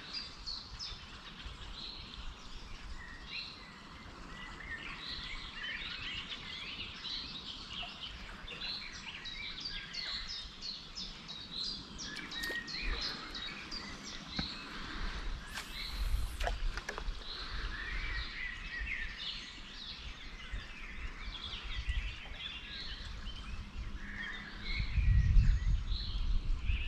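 Small birds singing, with many short chirps throughout over a steady background hiss, and a low rumble near the end.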